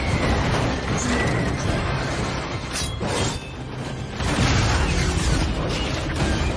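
Action-film sound mix of a military cargo jet in flight: steady jet and rushing-air noise under dramatic music, with heavy booms and impacts. Two sharp hits come about three seconds in, and it grows loud again about a second later as the engine breaks up in sparks.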